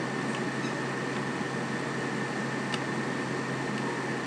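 A steady mechanical hum with a thin high whine over it, and a couple of faint clicks.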